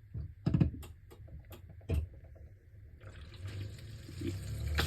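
Bosch dishwasher drain pump switching on as the float is held up: a few light clicks, then about three seconds in the pump starts, a steady hum with water being pumped out, growing louder near the end. Running smoothly with no grinding, which the owner takes to mean the pump is good.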